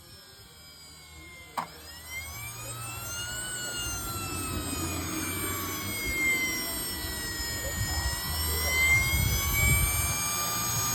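Jetmunts 250XL model jet turbine running with a high, multi-pitched whine. A sharp click comes about one and a half seconds in. The pitch then rises, sags in the middle and climbs again as the turbine gets louder. The owner questions whether the sound points to a bad bearing.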